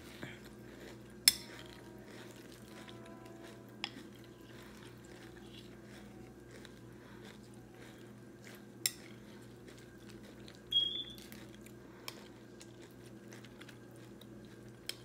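A spoon clinking against a cereal bowl about five times; the loudest clink, near the start, rings on faintly for a couple of seconds. A short high scrape of the spoon comes a little past the middle. Quiet chewing of crunchy frosted corn flakes and a steady low hum sit underneath.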